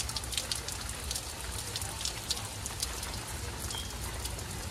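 Rain falling steadily: a constant hiss with many irregular drop ticks close by, over a steady low rumble.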